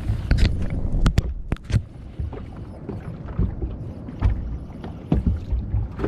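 Low rumble of wind and water around a small fishing boat at sea, broken by sharp knocks and clacks on the boat, several close together in the first two seconds and a couple more later.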